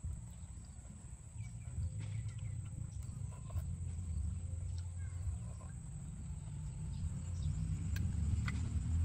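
Scattered small clicks and taps of snail shells and a wooden pick as steamed snails are picked out and eaten, over a constant low rumble.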